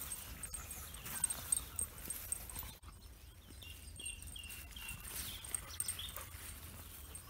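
Footsteps and rustling through grass over a low wind rumble on the microphone, with a bird singing a run of short whistled notes about halfway through.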